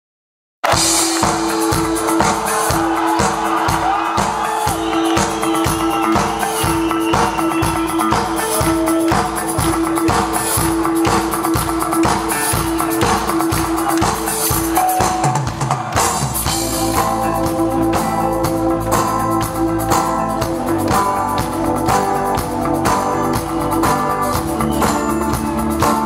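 Live rock band playing a song's instrumental intro: a steady drum beat under a long held note, with bass and guitar lines coming in about sixteen seconds in.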